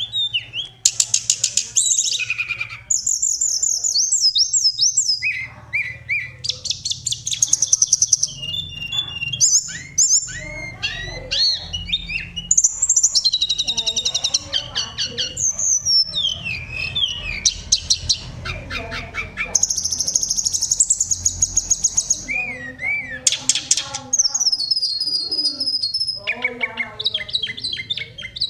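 Hill blue flycatcher singing a long, varied song of high whistles, fast trills and warbled phrases, with short pauses between phrases. A faint low hum runs underneath.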